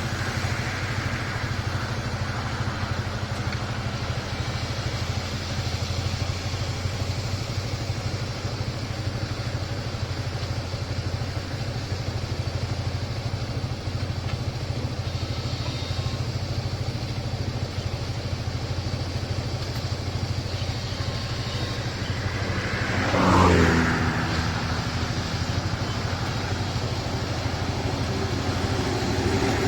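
Sumitomo 200 hydraulic excavator's diesel engine running steadily. It swells louder for about a second roughly three-quarters of the way through.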